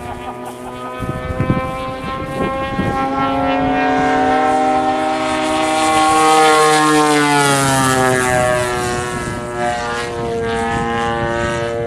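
Radio-controlled airplane flying past, its engine and propeller note growing louder to a peak about six seconds in, then dropping in pitch as it passes and moves away.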